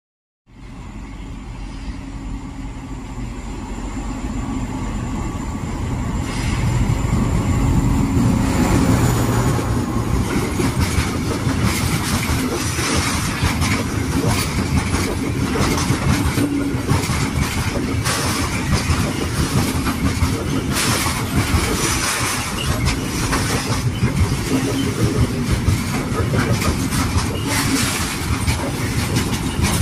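Freight train hauled by a DB Class 261 diesel-hydraulic locomotive growing louder over the first eight seconds or so as it comes up and passes. Then a long string of open freight wagons rolls by close up with a steady rumble and repeated clatter of wheels on the rails.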